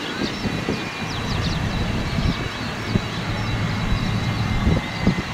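Boeing 767 jet engines running at low power as the airliner taxis after landing, a steady distant rumble.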